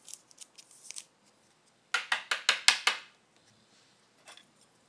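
Trading cards and their plastic sleeves and wrappers being handled. Light crinkling comes first, then about two seconds in a quick run of about six sharp rasping strokes, and a single click near the end.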